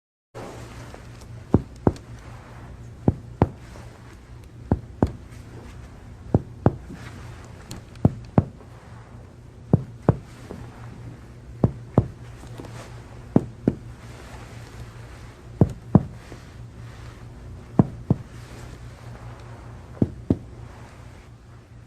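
Chest sounds heard through a stethoscope during a check for transmitted voice sounds: pairs of short, sharp knocks come about every two seconds, over a steady low hum. The patient's voice comes through the chest wall muffled, without clear words.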